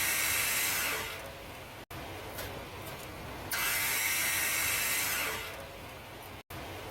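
Ford F-150 starter grinding and whirring in two bursts of about two seconds each, with quieter stretches between, while the engine fails to start. The uploader puts the grinding down to the starter solenoid's pull-in and hold-in coils.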